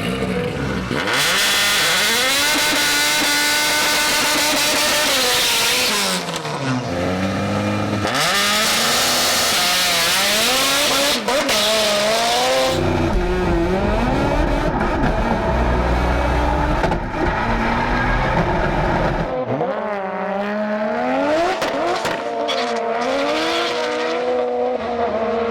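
Drag race car engine revving hard again and again, the pitch climbing and dropping, with two long stretches of loud tyre-spin noise over it.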